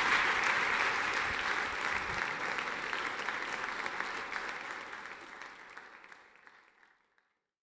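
Audience applauding at the end of a talk, a dense patter of many hands clapping that fades out over the last few seconds.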